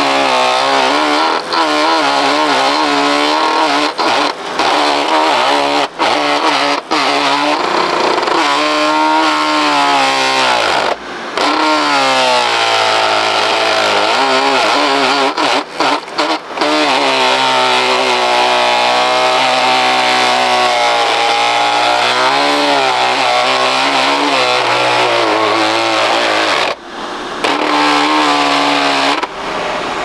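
Sharp Twin Energy vacuum cleaner's motor running loudly. Its pitch wavers, sagging and recovering several times, and it cuts out briefly several times.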